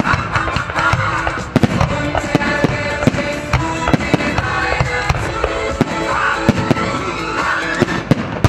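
Fireworks going off in quick succession over loud music: many sharp bangs and crackles. The music cuts off suddenly near the end.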